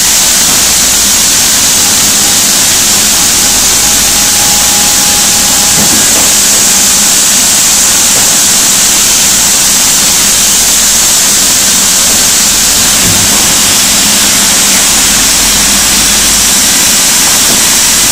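Sawmill machinery running steadily, heard as a loud, even hiss, with a faint whine for a couple of seconds about four seconds in.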